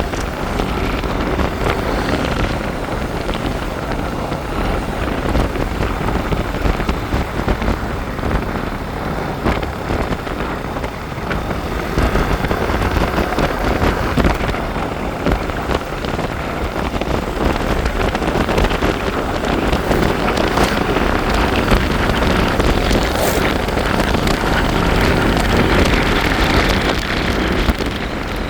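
Wind rushing and buffeting over the microphone on a moving motorbike, with a steady low rumble of the ride underneath.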